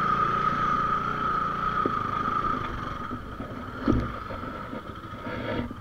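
Bajaj Pulsar 220 single-cylinder motorcycle engine running as the bike moves over a rough dirt track, with a steady high whine that fades out over the first three seconds. A single knock comes about four seconds in.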